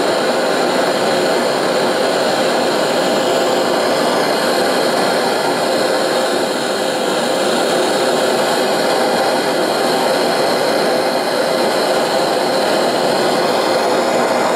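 Hand-held gas torch burning with a steady, even rushing noise. It is playing on the tang of a 1084 steel blade to draw its temper back to soft.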